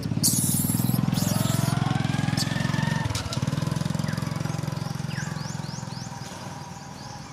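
A small engine running steadily with a rapid even beat, growing fainter toward the end. Short high chirps sound over it in the second half.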